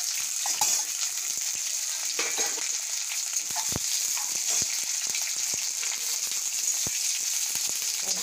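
Sliced onions frying in hot oil in a steel kadhai, with a steady high sizzle. A spatula scrapes and knocks against the pan now and then as they are stirred.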